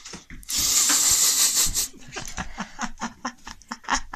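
Someone laughing: a loud breathy laugh starting about half a second in and lasting over a second, then a run of short, quick chuckles.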